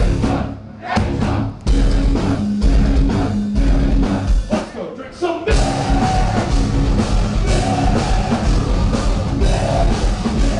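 Live metal band playing: guitar, bass and drum kit in stop-start hits with short breaks for the first five seconds, then the full band comes in steadily about five and a half seconds in.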